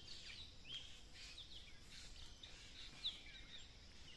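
A chorus of birds chirping in the trees: many short, high, quick calls overlapping one another, with a faint low background rumble.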